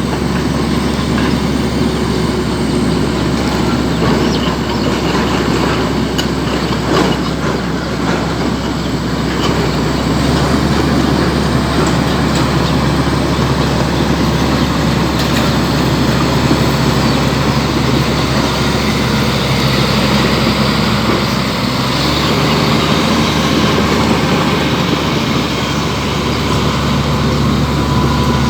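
Heavy diesel engine running steadily with a low drone, under broad mechanical noise and a few sharp clanks.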